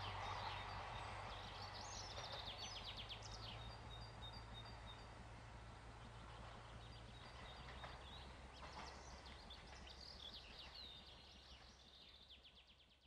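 Birds chirping in short bursts over the dying rumble of a train that has just passed. The train noise fades away, and the sound fades out at the very end.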